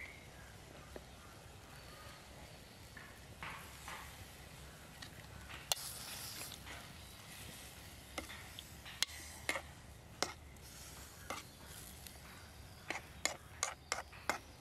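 Metal spoon tapping and scraping against a steel cooking pot while fish in curry are turned: scattered sharp clinks, more frequent near the end.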